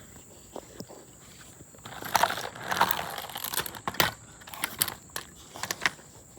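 Parts being handled by hand: a stretch of scraping and rustling about two seconds in, followed by a run of sharp clicks and knocks.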